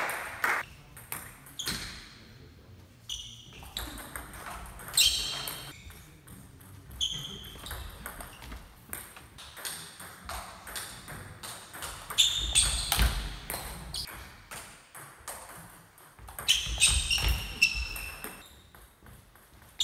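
Table tennis ball clicking off bats and bouncing on the table, with a few scattered bounces and then two quick rallies of rapid clicks, ringing a little in a large sports hall.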